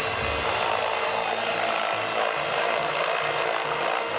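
Align T-Rex 700 radio-controlled helicopter in flight, its main rotor and motor making a steady whine over a rushing noise.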